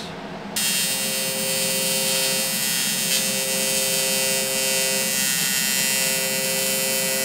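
TIG welding arc buzzing steadily, starting about half a second in and holding on as a weld is run on the tube in the vise.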